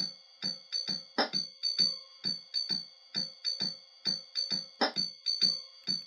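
Background music: electronic keyboard with a steady beat of about two short notes a second over held tones, and two louder accents.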